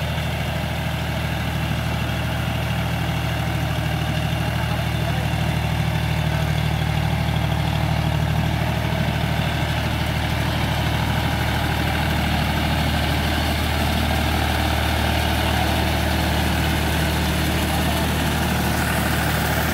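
John Deere 5045D tractor's three-cylinder diesel engine running steadily under load, driving a Shaktiman rotavator that churns flooded paddy mud for puddling. It grows a little louder as the tractor draws near.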